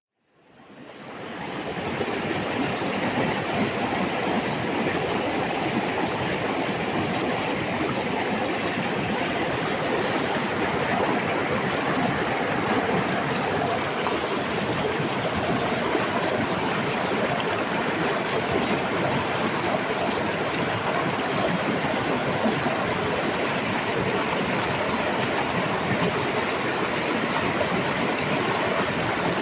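Rainforest stream running steadily, a dense even rush of water that fades in over the first two seconds.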